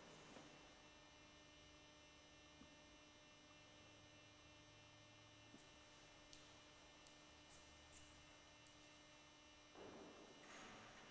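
Near silence with a faint, steady electrical hum, broken by a few faint ticks midway and a brief faint noise near the end.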